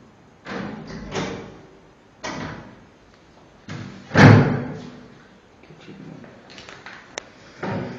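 A series of heavy thumps and knocks at irregular intervals, the loudest about four seconds in, with a short sharp click near the end.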